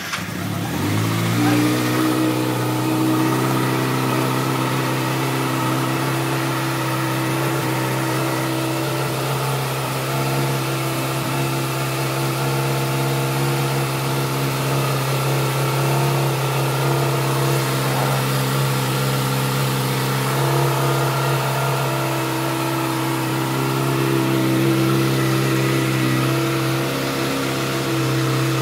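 2009 Kawasaki Ninja ZX-6R's inline-four engine, just started, its pitch rising during the first second before it settles into a steady, even idle. It gets slightly louder near the end.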